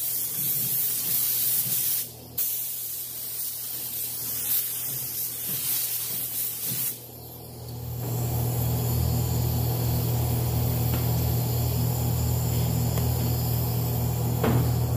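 Paint spray gun hissing as it sprays candy coat, let go briefly about two seconds in and stopping about seven seconds in. After that a steady low machine hum, with a short click near the end.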